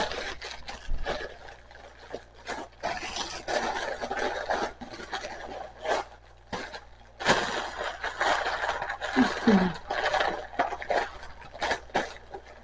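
Rustling, scraping and crinkling of packaging and items being handled close to the microphone, in irregular bursts, with a brief low murmur about nine seconds in.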